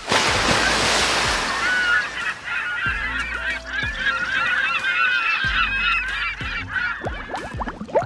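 A flock of birds calling, many overlapping honking calls. A loud rush of water hisses in the first two seconds, and quick rising bubbling sounds come in near the end.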